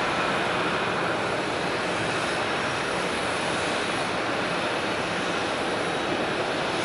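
Jet airliner engines giving a steady wash of noise with a faint high whine, mixed with the hiss of rain.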